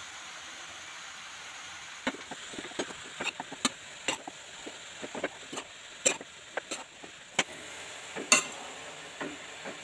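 Slotted spatula stirring and tossing grated carrots in a non-stick kadai. From about two seconds in it scrapes and knocks against the pan in many irregular clicks, over a faint steady sizzle of the carrots roasting in ghee.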